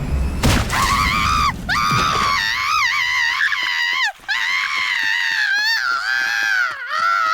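High-pitched, sped-up cartoon voice screaming almost without a break, its pitch wavering up and down. It follows a burst of low noise with a sharp crack at the start.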